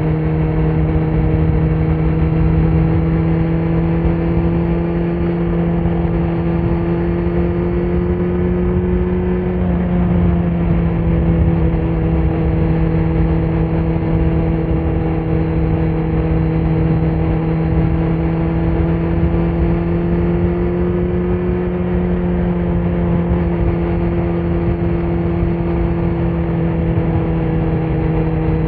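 2018 Kawasaki Z900's 948 cc inline-four engine, breathing through a Leo Vince muffler on stock headers with no dB killer, running under way at a near-constant engine speed. Its pitch creeps up slightly and eases back twice, about a third of the way in and again past two-thirds.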